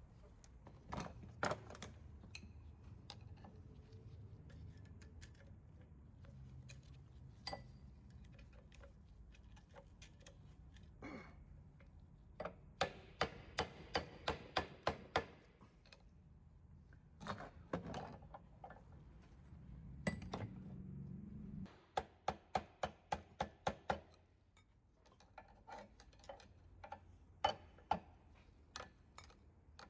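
Hand-tool work on metal: runs of sharp clicks, several a second, coming in a few bursts, over a low steady hum that stops about two-thirds of the way through.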